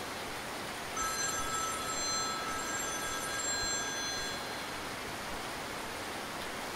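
Mobile phone ringtone: a repeating pattern of high electronic tones that pauses briefly, then plays again and stops about four seconds in when the call is answered.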